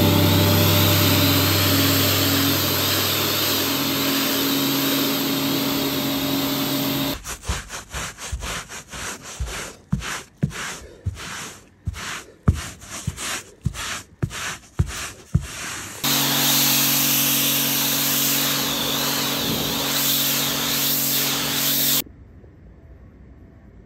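Pressure washer spraying a pile rug: a steady hiss of the water jet over the machine's motor hum. It stops about seven seconds in for a run of irregular rubbing strokes across the carpet pile, then starts again for several seconds and cuts off suddenly, leaving only a faint background.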